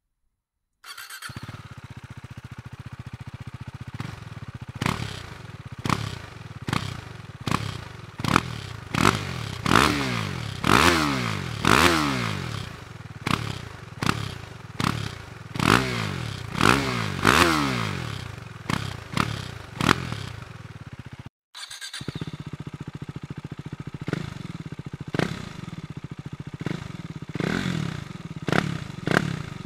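Husqvarna Svartpilen 401's single-cylinder engine idling, then revved in repeated short throttle blips that rise and fall back to idle. After a brief break, it idles again with a few lighter blips near the end.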